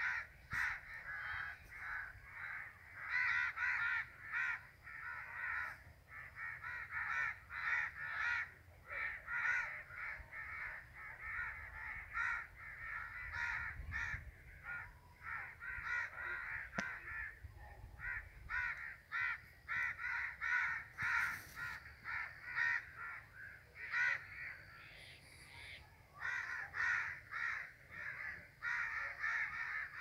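A flock of crows cawing over and over, many short harsh calls overlapping into a steady chorus with a few brief lulls.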